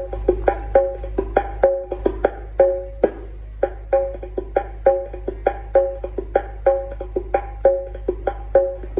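Music played loud through a large sound system: a quick, even pattern of short pitched percussion hits over a steady deep bass.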